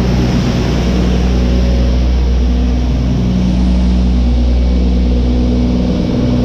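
A large engine running steadily: a loud, even, low drone with little change.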